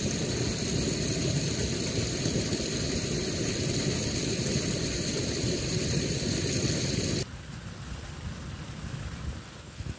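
Irrigation water flowing out of an opened ditch bank and spreading over the ground, a steady rushing. It cuts off abruptly about seven seconds in, leaving a quieter outdoor background.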